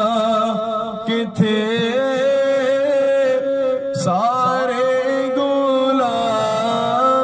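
A man sings a naat (an Urdu devotional poem) solo into a microphone, drawing out long held notes with wavering ornaments. There are brief pauses about a second in and again around four seconds.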